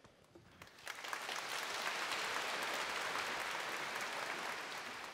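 Large audience applauding, the clapping building up about a second in and then holding steady.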